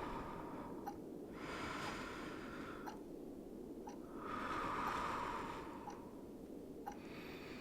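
Slow, soft breaths close to the microphone, three long ones, over a steady low background ambience with a few faint clicks.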